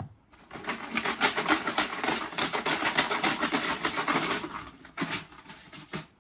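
Numbered draw pieces rattling fast inside a container as it is shaken to mix them before the next number is drawn, for about four seconds, then two single clacks.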